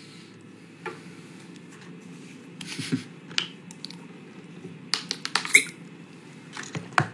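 Scattered short clicks, squeaks and rustling bursts at irregular moments over a faint steady hum: handling noise from a person shifting close to the phone with an acoustic guitar, clothing and instrument brushing near the microphone.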